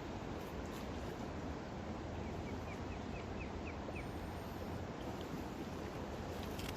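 Steady rushing of moving river water, with a bird giving a quick run of about eight chirps in the middle.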